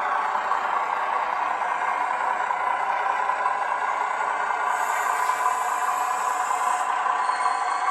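Zimo sound decoder in a Dapol O-gauge AEC railcar model playing a steady diesel railcar engine sound, adapted from Zimo's 'Schienen-LKW' (rail lorry) sound project, through the model's small speaker while the railcar runs along the track.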